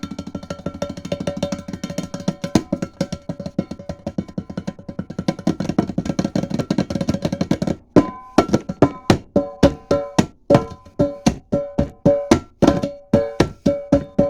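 Hand drumming on a coffee can: a fast, dense run of strikes for about the first eight seconds, then separate strikes at about three a second, each with a short ringing tone.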